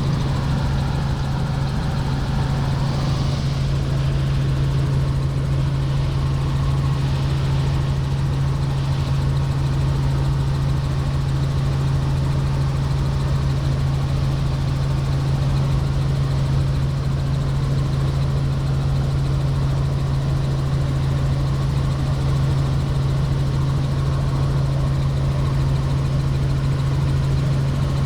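Helicopter in steady flight: constant engine and rotor drone heard from inside the cabin, dominated by one unchanging low hum.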